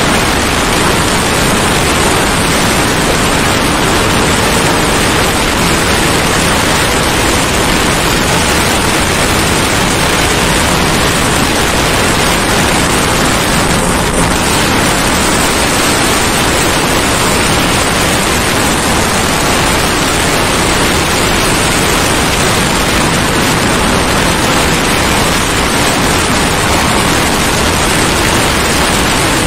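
Steady, loud wind rush over the microphone of a motorcycle cruising at about 95 km/h, with no engine note standing out.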